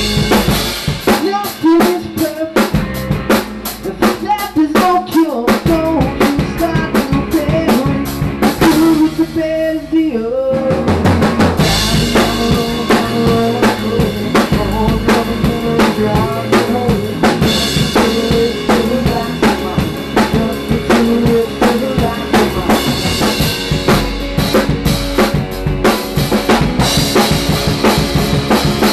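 A band playing a song live at practice, driven by a drum kit with steady bass drum and snare hits under pitched instruments. The band comes in fuller and heavier about ten seconds in, after a brief thinning.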